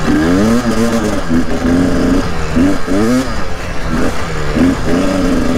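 KTM 300 TPI two-stroke enduro motorcycle engine revving up and down over and over under the rider's throttle, over a steady hiss.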